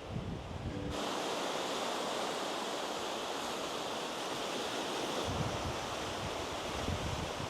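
Ocean surf, a steady rush of breaking waves that cuts in abruptly about a second in, with wind buffeting the microphone in the second half.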